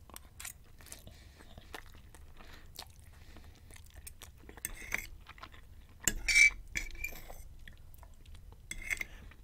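Chewing and wet mouth sounds of a man eating spaghetti with sausage in a cream sauce, with a metal fork clinking and scraping on a ceramic plate. A louder clatter comes about six seconds in.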